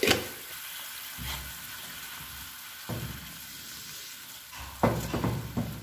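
A watery onion-and-tomato base bubbling and sizzling steadily in a non-stick frying pan. A wooden spoon stirs it and knocks against the pan a few times, most of them in a quick cluster near the end.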